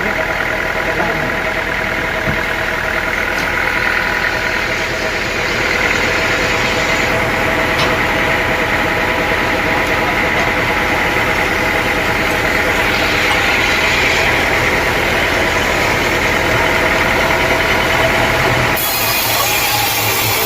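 Sawmill machinery running steadily: a continuous engine-like drone with a higher whine on top. The sound changes abruptly a couple of seconds before the end.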